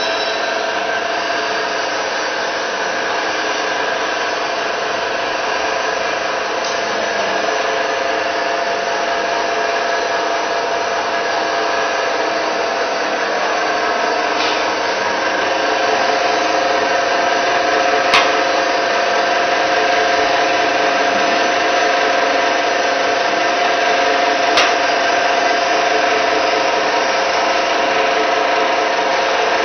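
Geared electric motor drive of a stainless-steel plough mixer running steadily: a continuous mechanical hum and whine with several held tones. Two brief clicks come in the second half.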